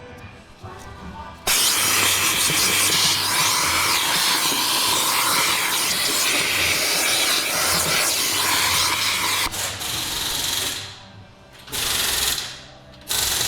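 Loud, steady rush of air from cleaning dirt out of a car's steering area, starting about a second and a half in. Near the end it cuts out briefly twice and starts again each time.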